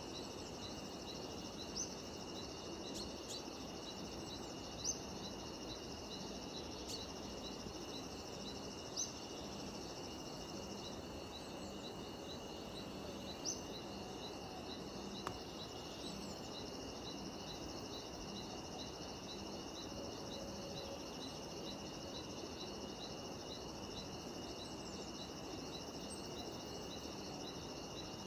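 Steady chorus of cicadas and other insects with a fast, evenly repeating chirp, and a few short, sharp bird calls rising above it, the loudest about five and nine seconds in.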